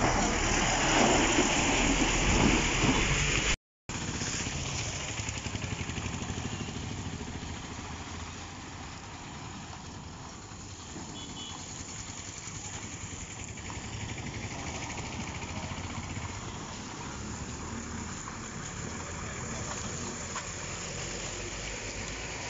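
A heavy truck driving through muddy water, its engine and tyres loud for the first few seconds and then cut off abruptly by a short dropout. After that comes quieter, steady traffic noise of vehicles on a wet, potholed road.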